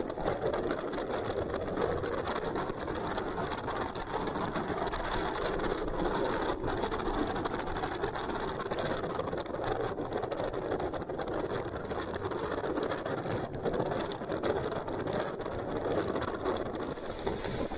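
Steady wind buffeting the microphone, mixed with the wash of choppy harbour water.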